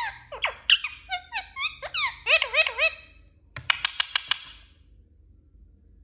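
Indian ringneck parakeet chattering: a rapid run of short pitched calls that arch up and down in pitch, then a fast burst of sharp clicks about three and a half seconds in.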